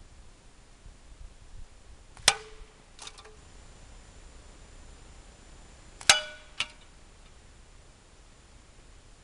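Two slingshot shots strike a metal can, about four seconds apart. Each hit is a sharp metallic clang that rings briefly, followed about half a second later by a fainter knock.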